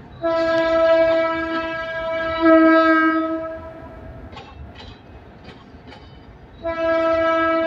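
ALCO RSD-16 diesel locomotive's horn sounding: one long multi-note blast of about three seconds, then a second blast starting near the end. Between the blasts, a few sharp clacks of the passing train.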